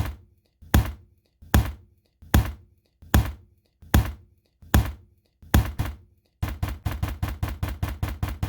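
A steady beat of sharp, heavy knocks, one about every 0.8 seconds, each dying away quickly. About six seconds in, it switches to a faster run of knocks, several a second.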